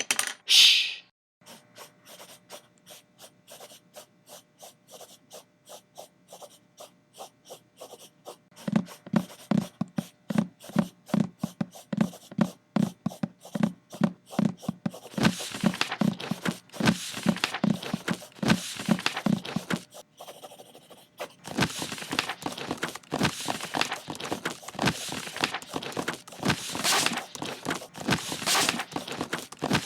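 Rhythmic pattern built from recorded everyday sounds: after a loud opening hit comes a steady beat of short clicks, about two or three a second. Low thuds join the beat about nine seconds in, and noisy scraping hits join about fifteen seconds in. After a brief pause near twenty seconds, a denser beat of layered hits follows.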